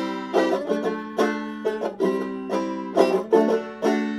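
Background music on a plucked string instrument: picked notes and chords about three a second in a steady rhythm.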